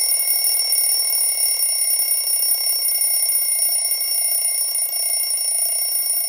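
A phone alarm ringing with a steady, high-pitched electronic tone.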